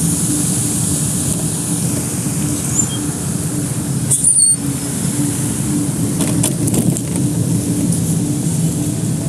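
Electric mobility scooter riding along a path: a steady low motor hum with rolling noise, and a brief high squeak about four seconds in.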